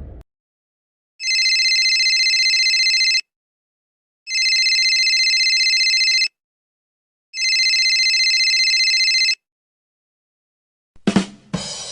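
Phone ringing sound effect: three trilling rings of about two seconds each, with a second of silence between them. Near the end, a 'ba-dum tss' rimshot: two quick drum hits and a cymbal crash.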